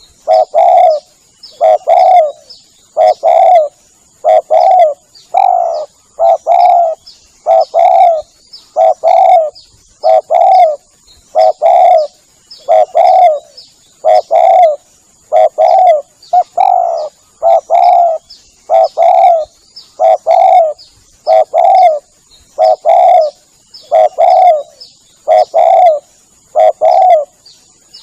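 Spotted dove (tekukur) lure call: short two-note coos repeated steadily, about once a second.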